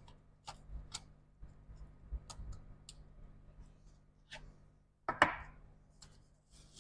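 Scattered light clicks and taps of small laptop parts and connectors being handled on a repair bench, with one louder sharp click about five seconds in.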